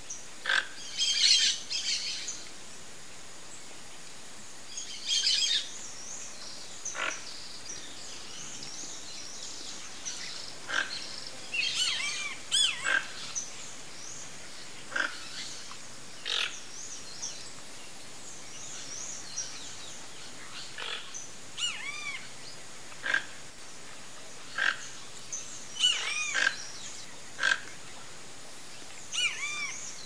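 A flock of toco toucans calling: short calls come at irregular intervals, a second or several apart, with clusters of higher chirping mixed in.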